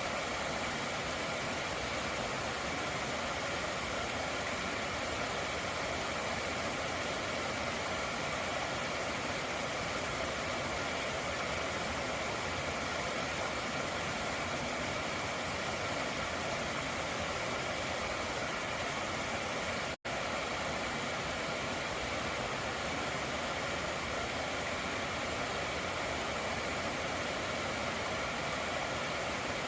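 Stream water running steadily over its bed, a constant rushing hiss with no pauses. The sound cuts out for an instant about two-thirds of the way through.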